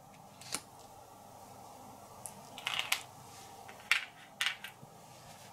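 Board-game tokens being picked up and set down on a tabletop: light clicks and taps, one about half a second in, a short cluster near the middle and a few more near the end.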